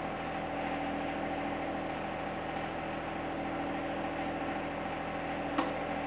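John Deere compact tractor's diesel engine running steadily while it powers the backhoe hydraulics as the 260B bucket curls against the hydraulic thumb. There is a single short click about five and a half seconds in.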